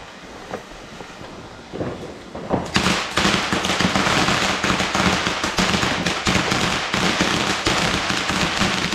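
Ground-level fireworks going off: a few scattered cracks, then from about three seconds in a dense, rapid crackling of many small pops.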